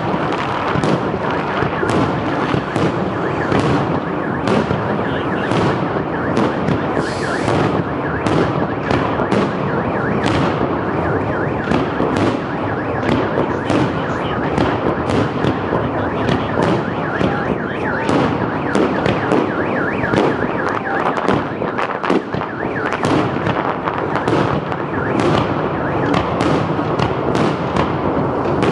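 Aerial fireworks display: a dense, continuous run of bangs and crackle from bursting shells, many reports in quick succession with no pause.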